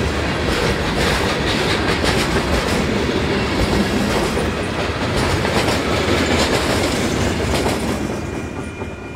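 CSX freight train's boxcars and covered hoppers rolling past close by, the wheels clattering over the rail joints. The train noise fades after about eight seconds as the last car goes by.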